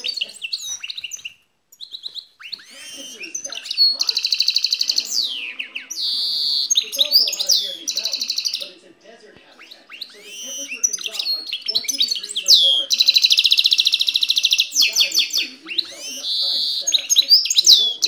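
Goldfinch mule, a hybrid finch, singing at close range: a long twittering song of quick chirps and sweeping notes, broken by rapid buzzy trills, the loudest of them about two-thirds of the way through and near the end.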